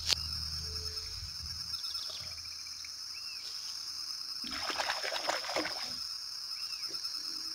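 Steady high-pitched insect buzz with a few short bird chirps and a sharp click at the start; about four and a half seconds in, a second-long burst of splashing.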